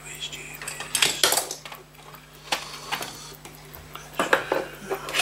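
Small metal watchmaker's tools and watch parts clicking and clinking against a brass work plate. There is a cluster of sharp clinks about a second in, a few single taps, and another cluster about four seconds in.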